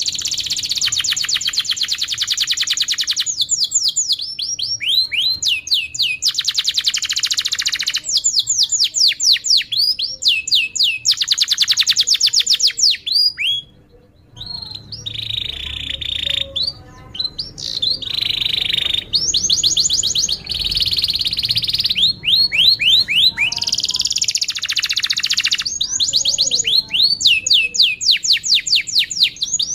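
Domestic canary singing long song: rolling trills of rapidly repeated notes alternating with runs of quick downward-sweeping chirps, with a brief break about halfway through.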